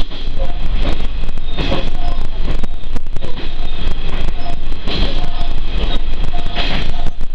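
Cabin running noise of a Tenryu Hamanako Railroad diesel railcar under way: a steady heavy rumble of engine and wheels on rail, with three short louder bursts of wheel-and-rail clatter.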